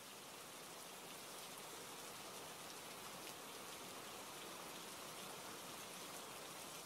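Faint, steady light rain falling on a wet street, an even hiss.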